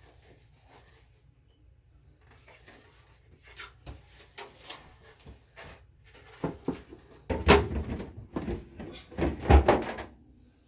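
Refrigerator trays and drawers being handled and fitted into place: a run of knocks and clatters, loudest in two clusters near the end.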